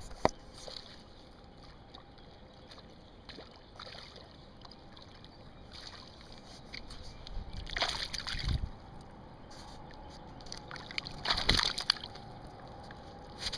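Hooked smallmouth bass splashing and sloshing at the surface as it is brought in to shore, with two louder splashes, one about halfway through and one near the end, and a few sharp handling clicks.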